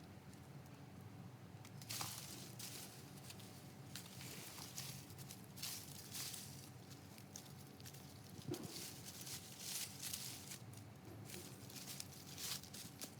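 Soft, irregular rustling and crunching of soil and plant matter being handled in a garden bed.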